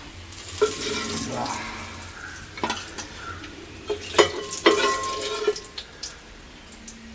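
Fish frying in hot coconut oil, sizzling steadily, with a few sharp clinks of a metal utensil against the pan that ring briefly.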